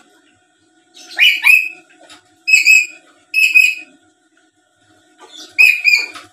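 Black-capped lory giving a series of short, high-pitched calls: two quick notes about a second in, single notes at about two and a half and three and a half seconds, then another quick pair near the end.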